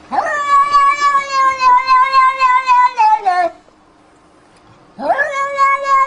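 A cat yowling: one long drawn-out call of about three and a half seconds that drops in pitch as it ends, then a second long yowl starting about five seconds in.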